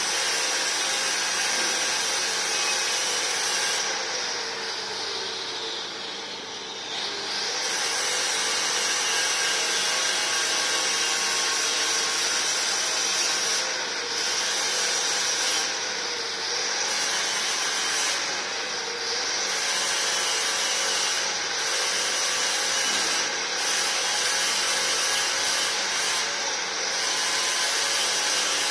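Angle grinder running continuously while stripping a surface, its motor pitch wavering as it is pressed on and eased off. The grinding drops off for a couple of seconds about five seconds in.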